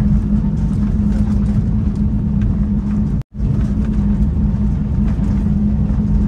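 Airliner cabin noise: the steady roar of the engines and rushing air with a constant low hum, heard from a passenger seat. It cuts out completely for an instant about three seconds in.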